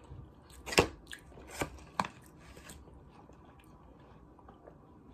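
Close-up eating sounds of fried chicken tenders with a glazed donut: four sharp bite and mouth clicks in the first two seconds, then faint chewing.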